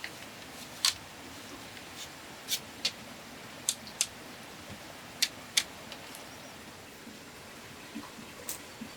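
About ten sharp clicks and light taps at irregular intervals over a steady low hiss, typical of handwork on bamboo.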